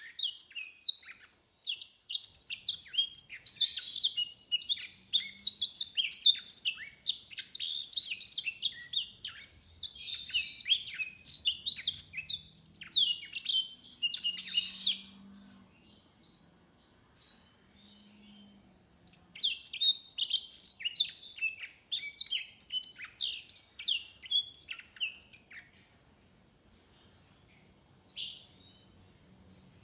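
Black-throated canary mule (hybrid finch) singing: long runs of rapid, high, trilling song phrases, broken by a pause of a few seconds past the middle, with a last short phrase near the end.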